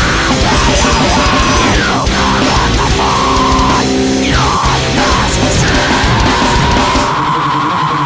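Loud heavy rock music from a band with guitar, dense and unbroken, with a long held high note through the second half.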